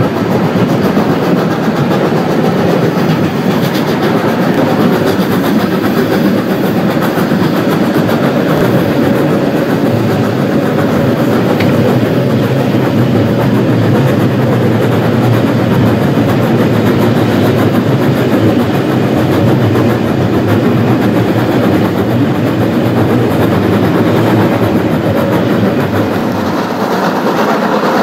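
Narrow-gauge steam train hauled by Rhaetian Railway G 4/5 No. 108, heard from an open carriage window: a steady, loud noise of the locomotive working and the wheels running on the rails, easing slightly near the end.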